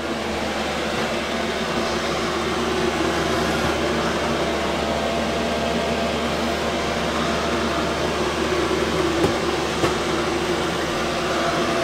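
5 kW diesel air parking heater running steadily, warmed up at its highest pump setting: a fan-like whir, much like a household fan on medium or high speed, with a few steady hum tones underneath.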